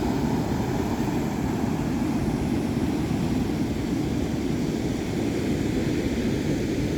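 Pacific Ocean surf: a steady, even rushing of waves.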